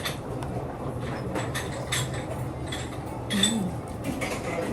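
Dishes and cutlery clinking during a meal: a string of short, sharp clinks that ring briefly, over a steady low hum.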